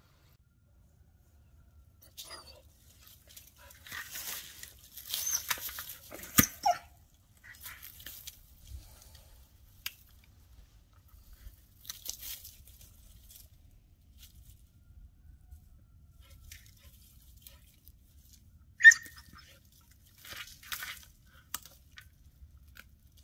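A dog rummaging through dry leaves and brush: bursts of rustling and crunching with pauses between, and one sharp, louder sound about three-quarters of the way through.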